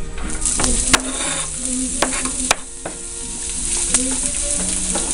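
Chopped onions sizzling as they hit hot oil in a frying pan, with several sharp clicks and scrapes of a knife pushing them off a plastic cutting board. The sizzle starts about half a second in and holds steady.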